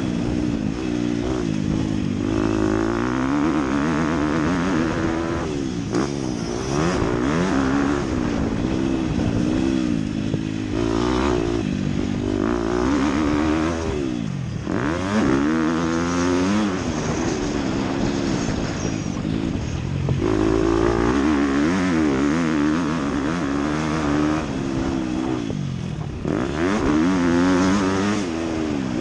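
Dirt bike engine, heard from on board, revving hard and easing off again and again as it is ridden round a motocross track. The pitch climbs through the gears, then drops each time the throttle is shut, about every four to six seconds.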